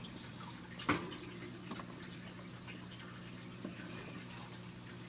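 A few faint small clicks and ticks, one sharper than the rest about a second in, over a steady low hum.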